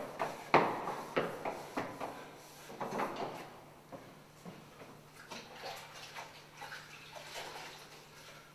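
Wet sponge swept hard across a chalkboard, one stroke about every half second, the strokes dying away after about three seconds. Softer, scattered handling sounds follow.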